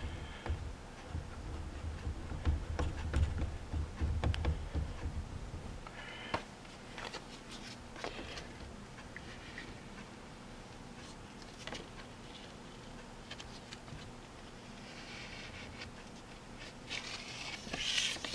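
Quiet handling sounds of fingers nudging and rubbing a wet water-slide decal into place on a plastic Yamaha FZR fairing panel: small scattered clicks and scrapes, with a brief scratchy rubbing near the end. A low rumble underneath stops about six seconds in.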